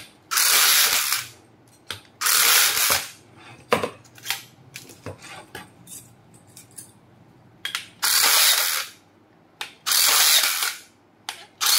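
MAX RB-395 battery rebar tying tool firing four tie cycles about a second each, each one a short motor run that wraps and twists the wire, with a fifth starting at the end and small clicks between them. It ties again and again with the wire reel correctly loaded.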